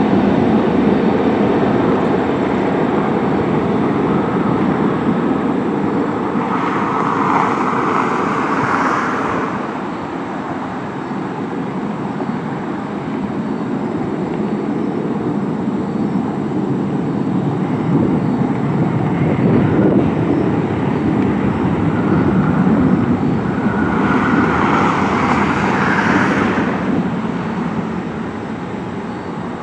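Three Pratt & Whitney PW4000 turbofans of a McDonnell Douglas MD-11F freighter at takeoff power: a loud jet roar as the aircraft rolls, lifts off and climbs away. The roar swells twice with a harsher hiss and eases off near the end.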